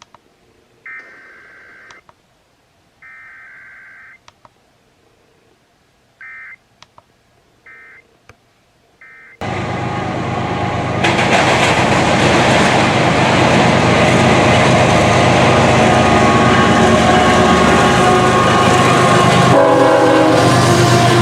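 Emergency Alert System SAME data bursts: a raspy two-tone warbling buzz lasting about a second, sent twice with a gap, then three short end-of-message bursts. About nine seconds in, loud, dense broadcast audio cuts in abruptly and runs on.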